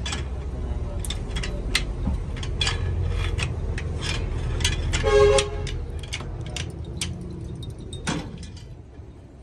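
Repeated metal clinks and taps of a tubular box spanner and bar working the axle nut on a truck wheel hub, over a steady low rumble. A vehicle horn honks briefly about five seconds in.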